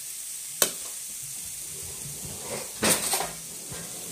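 A metal spoon clinking against a metal ring mould as mashed potato is spooned in: one sharp clink about half a second in, then a quick run of several clinks about three seconds in. A steady sizzling hiss runs underneath.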